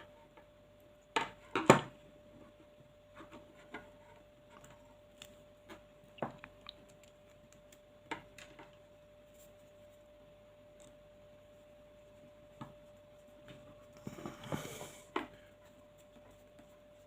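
Light clicks and taps of a small screwdriver and screws on a plastic airsoft hop unit as it is screwed back together, scattered and irregular, with a short burst of louder handling noise about fourteen seconds in.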